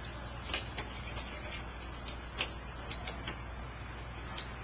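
Metal stem of a dial thermometer scraping and clicking against sand and chert cobbles as it is pushed down into a heated turkey roaster. It makes a run of short, scratchy clicks, with a few sharper ones, over a steady low hum.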